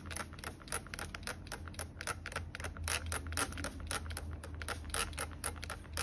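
Cockatiel bathing in a steel water bowl, splashing with its wings: a rapid, irregular patter of water splashes and droplets.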